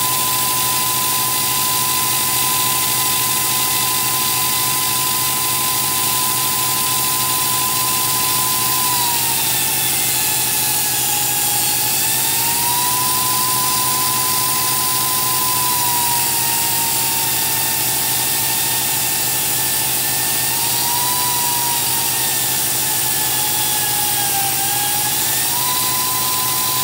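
Small rotary grinder on an automated repair robot, spinning with a steady high whine over a lower machine hum. Its pitch sags twice and then recovers as the bit bears down on the steel plate and grinds, slowing under load.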